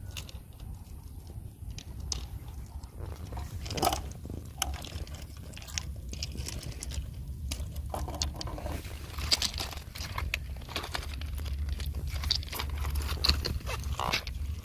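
Railway ballast stones clicking and crunching as they are picked up and handled, a scatter of irregular sharp knocks, with a steady low rumble underneath.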